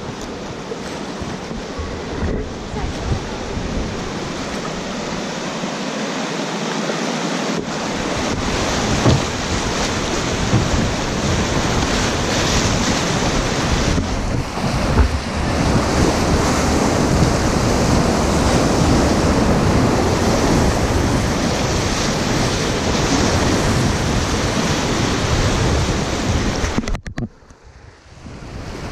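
Class III whitewater rapids rushing, mixed with wind rumbling on the microphone. The sound drops away sharply for about a second near the end, then returns.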